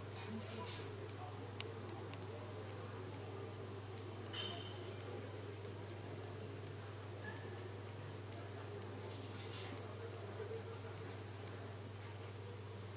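Small, sharp plastic clicks at irregular intervals, about two or three a second, from an isostat push-switch slider and its latch being worked between the fingers, over a steady low hum.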